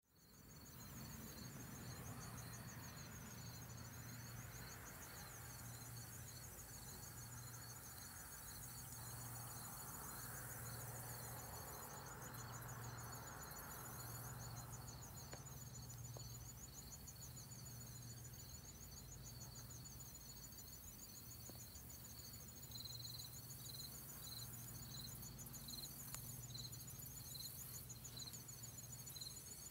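Faint insects calling: a fast, steady high trill with a slower run of chirps just beneath it, over a low hum.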